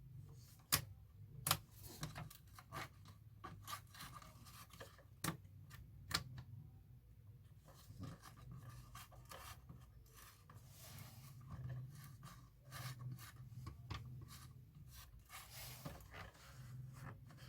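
Irregular sharp clicks and handling scrapes from the buttons and switches of an old cassette tape recorder being pressed to power it up, over a faint low hum. The set stays dead and will not switch on.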